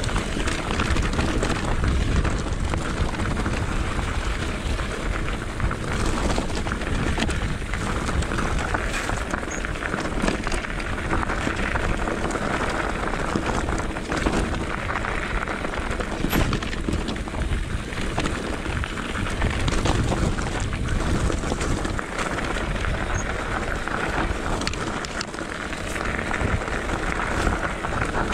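Mountain bike rolling fast down a rocky gravel trail: tyres crunching and crackling over loose stones, the bike rattling on the bumps, with wind rumbling on the microphone.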